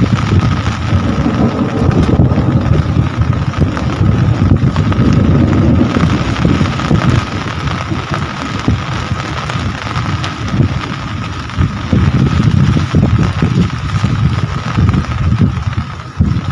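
Heavy rain pouring steadily, with a deep rumble underneath and a faint steady high tone running through it.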